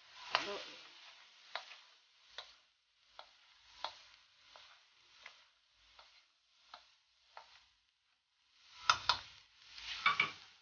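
Wooden spatula scraping and knocking against a stainless steel wok while diced beef heart, liver and lungs are stirred and sautéed, with some sizzling from the pan. The strokes come roughly every two-thirds of a second, with a quicker, louder flurry near the end.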